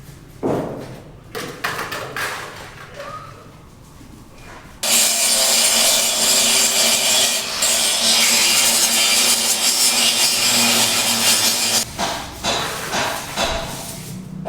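Power tool cutting: a loud, steady rasping noise that starts abruptly about five seconds in and stops about seven seconds later. Scattered knocks come before and after it.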